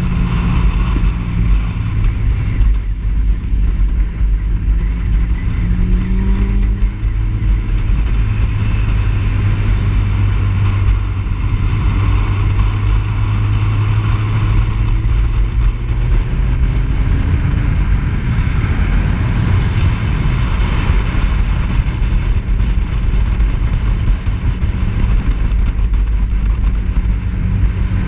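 Sport motorcycle engine running at speed, its pitch rising and falling a few times with the throttle, under heavy wind rush on the bike-mounted camera's microphone.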